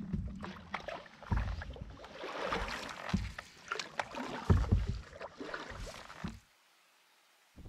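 Canoe paddling with a wooden paddle: irregular splashes of the blade in the water and several dull knocks against the folding canoe's hull. It cuts off abruptly about six and a half seconds in.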